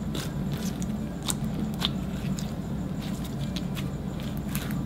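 Stiff, dried-out slime kneaded and pressed by hand, giving off irregular small crackles and sticky pops. The gold powder has dried the slime into a thick, putty-like consistency.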